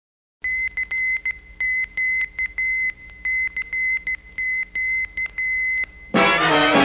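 A single high beep keyed on and off in short and long beeps: Morse code. About six seconds in, loud brass-led swing music comes in.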